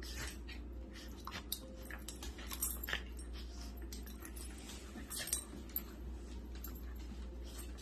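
Two dogs play-wrestling on a dog bed and wooden floor: irregular scuffling and short, soft noises from the dogs.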